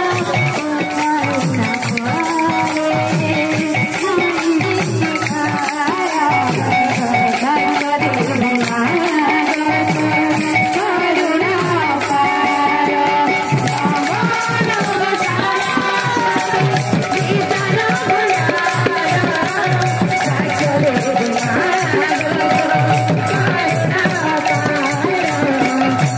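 Live Odia kirtan folk music: a large hand-played barrel drum and jingling hand cymbals keep a fast, steady beat under a bending melody line.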